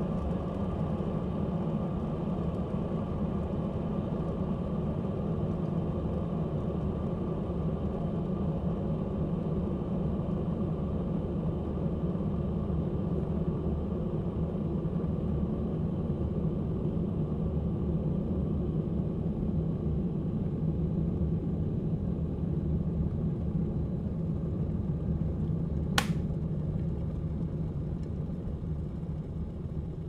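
Plastic electric kettle at a rolling boil, the water bubbling in a steady low churn. Near the end a single sharp click, the kettle's switch turning off, and the boiling starts to die down.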